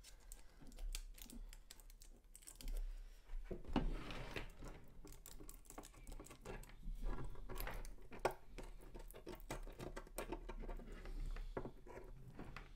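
Scissors snipping through tape wrapped on a plastic stud, with small clicks and rustles from handling the tape and the 3D-printed plastic bag body. The clicks come irregularly, with a louder cluster about four seconds in.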